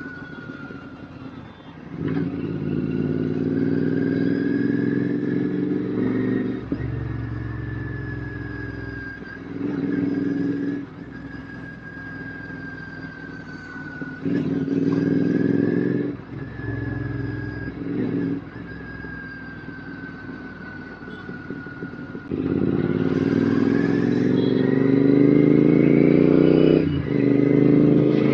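Royal Enfield GT650's 648 cc parallel-twin engine through an aftermarket RRP exhaust while riding: the throttle opens in several short surges and rolls off between them, then a longer pull near the end in which the engine note climbs.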